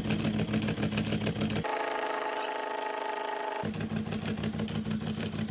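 Falk 455/3s upright toy steam engine running with a fast, even beat. About a second and a half in, the sound switches abruptly to a steadier, higher hum. About two seconds later the beat returns just as abruptly.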